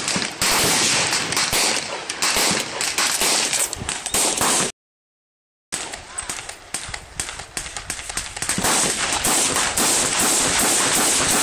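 Rapid gunfire from an AK-47 rifle: a dense run of sharp cracks, then, after the sound cuts out completely for about a second, a steadier string of shots at roughly three to four a second.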